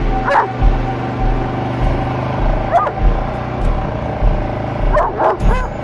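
A vehicle engine runs steadily with a low throb while a dog running alongside barks a few times, with spaced-out single barks and two close together near the end.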